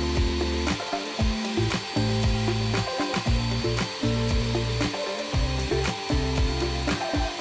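Ninja Professional 1500-watt countertop blender run on pulse: the motor spins up in short bursts about once a second, chopping the food in the jar, with brief pauses between bursts.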